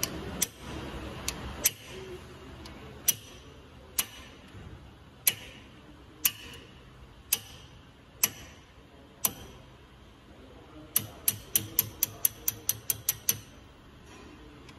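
Hand ratchet with a 13 mm socket clicking while it is worked on a front brake caliper pin. Single sharp clicks come about once a second, then about eleven seconds in there is a quick run of a dozen or so clicks.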